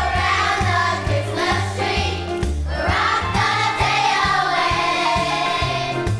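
Children's choir singing together over an instrumental accompaniment with a steady bass line and a regular drum beat.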